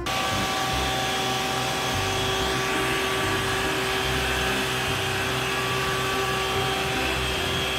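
Water cannon on an Isuzu water tanker truck firing a long jet, a steady rushing hiss with the pump's even hum under it. The sound starts and stops abruptly.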